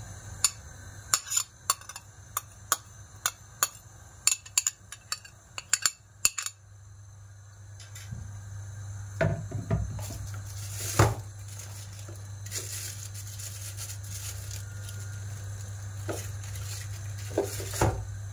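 Metal spoon clinking and scraping against a stainless steel pan while chopped onions are stirred in olive oil. There is a quick run of sharp clinks for the first six seconds, then a few scattered knocks later.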